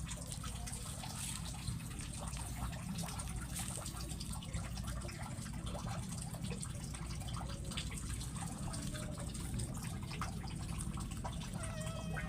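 A cat chewing and crunching on chicken bones and fish scraps: many small irregular wet clicks over a steady low hum. A short meow starts near the end.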